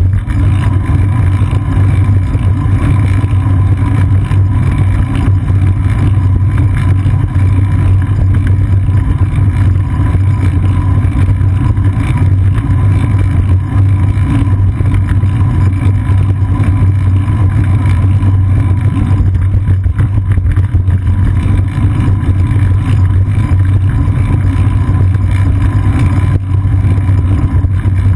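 Loud, steady low rumble of wind and riding vibration picked up by a GoPro camera mounted on a moving bicycle's seat post.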